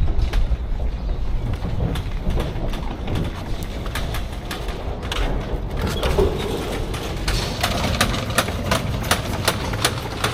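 A steady low rumble of vehicle engines idling, with a run of sharp clicks or taps over the second half.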